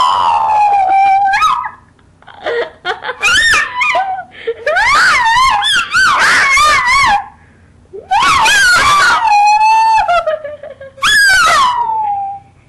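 Small blonde dog screaming in separation distress at her owner's absence: five long, high, wavering cries that mostly slide down in pitch, with short breaks between them.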